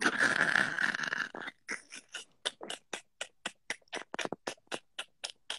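A person's breathy, wheezing laughter: a rush of breath for about a second and a half, then a fast, even run of short puffs, about five a second.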